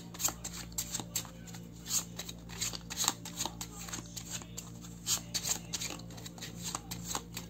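A deck of oracle cards shuffled by hand, passed in small packets from one hand to the other: a quick, irregular run of card snaps and slides, several a second.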